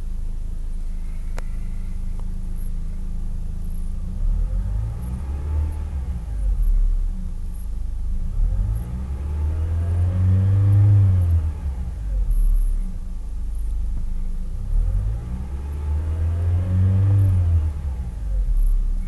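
Honda Accord's direct-injection engine heard from inside the cabin, revved up and let back down three times over a steady idle. The uploader takes its noise for normal and healthy.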